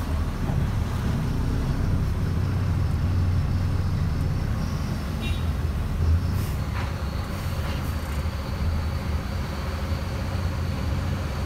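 Diesel lorry engine idling at about 500 rpm, heard from inside the cab as a steady low hum, with a brief louder moment about six seconds in.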